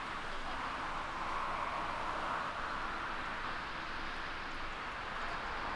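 Airbus A380-841's four Rolls-Royce Trent 900 jet engines at takeoff thrust as the airliner climbs away after liftoff: a steady rush of jet noise that swells slightly about two seconds in.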